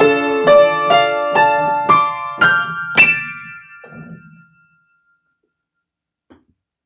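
Solo piano playing the closing notes of a song: single notes struck about two a second, the last one about three seconds in, left ringing until it fades to silence. A faint tap comes near the end.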